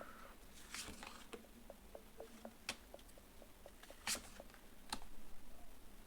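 Faint handling noise from tarot cards: scattered soft clicks and a few sharper taps or snaps.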